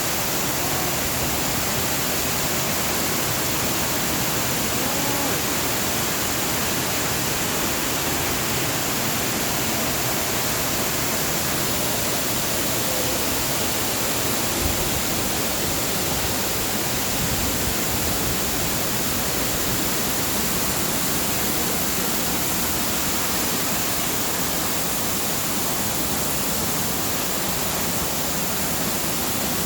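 Wide curtain waterfall pouring steadily: an even, unbroken rush of falling water.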